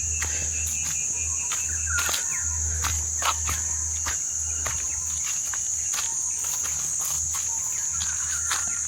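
Steady high-pitched insect drone, with a few short bird calls about two seconds in and again near the end, over a low steady hum and occasional faint clicks.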